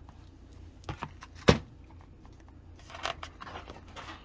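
A picture book being handled and opened: a few small clicks, then a sharp tap about a second and a half in, then a rustle of paper as a page turns, about three seconds in.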